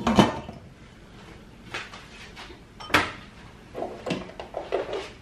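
Glass pot lid set down on a stainless steel pot with a clack at the start, followed by a few lighter knocks and clinks.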